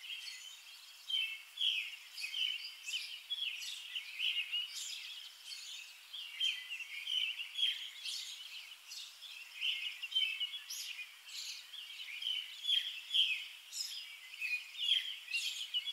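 Birds chirping and singing: many short, overlapping calls at a moderate-to-faint level, going on without a break.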